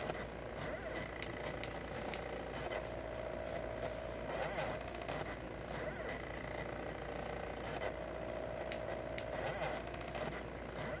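Small 2000 mW diode laser engraver at work, its stepper motors whining in steady tones that stop, restart and change pitch as the laser head moves across the engraving. Under them runs a steady low hum, with a few sharp ticks.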